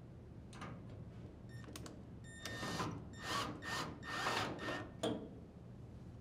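Cordless drill driver with a square-head bit running in several short bursts, driving screws into a dryer's metal door hinge, with a few light clicks before the bursts.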